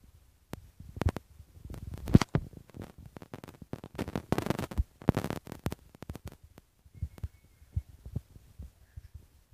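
Rhodesian Ridgeback puppies scuffling and play-fighting on a wooden floor and rug: irregular light thumps and clicks of paws and claws, with a denser stretch of scuffling about four seconds in.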